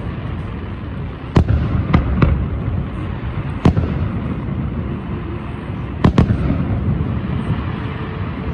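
Aerial firework shells bursting: six sharp bangs at uneven intervals, two of them in quick pairs, over a continuous low rumble from the display.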